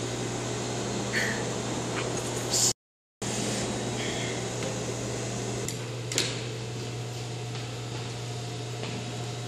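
Steady low machine hum and room noise of a sewing workroom, with a few light clicks. The sound cuts out completely for a moment just under three seconds in.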